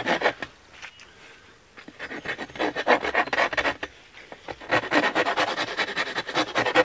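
A hand file scraping over a dry, peeled spruce shovel handle in quick, light strokes, rounding and smoothing it. The strokes are quieter for the first couple of seconds, then come fast and close together.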